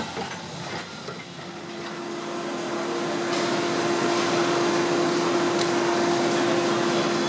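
A steady mechanical hum with one droning tone over a rushing noise. It builds up over the first couple of seconds and then holds steady. Before that there is the fading noise of a passing train.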